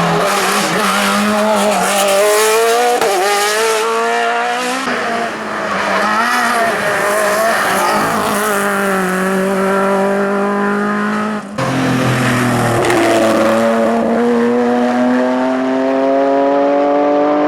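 Hill-climb race car engine at high revs, its pitch rising and falling through gear changes. There is a sharp break about eleven and a half seconds in, then a long, steady climb in pitch.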